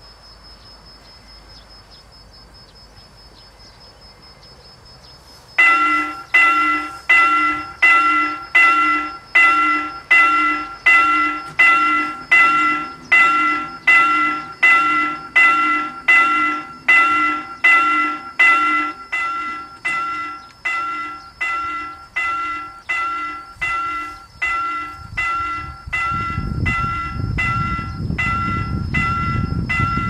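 Railroad level-crossing warning bell starting about five seconds in and striking in a steady rhythm as the crossing activates for an oncoming train. Near the end a low rumble of the approaching train rises underneath the bell.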